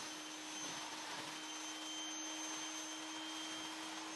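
Steady hiss of water spraying from the gun of an IK Foam Pro 12 pressurized sprayer, over a steady hum from its battery-powered air compressor.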